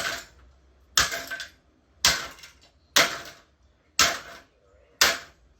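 Hard blows landing on a vintage Mistral Gyro-Aire fan, about once a second, six times, each a sharp crack with a short ringing tail. The fan holds together under the blows.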